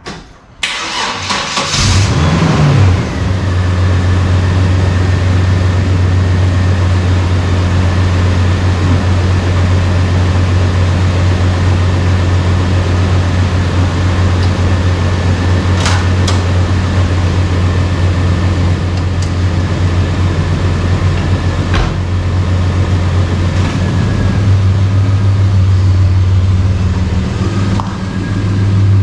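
GMC Sonoma pickup's engine cranking and catching about two seconds in, then idling steadily. Two sharp metallic clicks come partway through.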